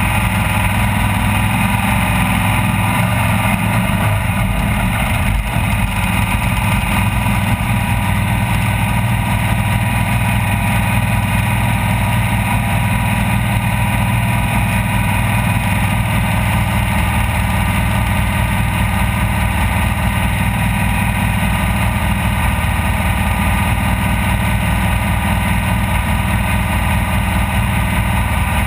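Off-road race vehicle's engine running loud and steady at a nearly constant pitch.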